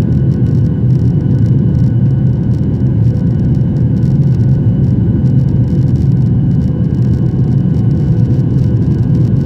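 Boeing 737-800's CFM56-7B turbofan engines at takeoff power, heard from inside the passenger cabin: a steady, loud, deep rumble with faint steady fan tones above it.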